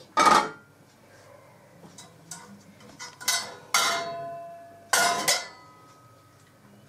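An enamel cooking pot, its lid, metal tongs and china dishes clanking: one sharp clank at the start, then three ringing clinks between about three and five and a half seconds in, as the lid comes off and the tongs go in for the boiled corn cobs.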